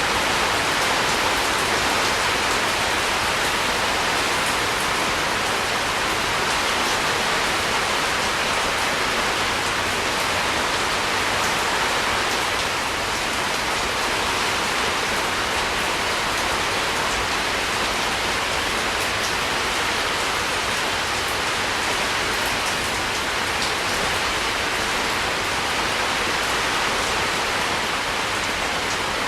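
Steady rain: an even hiss of rain falling on a surface, with faint scattered drop ticks and no letup.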